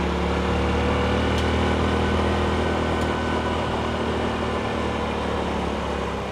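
Honda CT125's single-cylinder four-stroke engine running steadily at cruising speed while riding.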